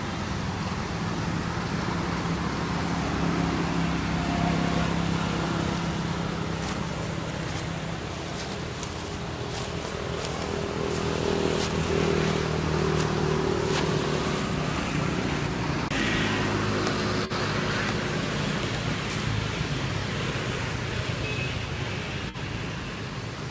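Road traffic: engines of passing vehicles running with a steady hum that swells and changes pitch as they come and go, with a few faint clicks about halfway through.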